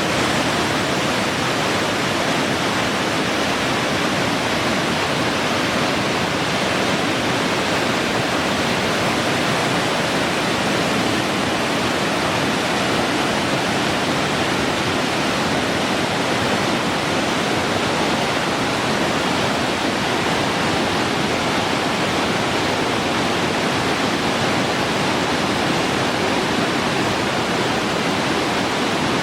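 River water rushing steadily, a continuous even rush with no breaks.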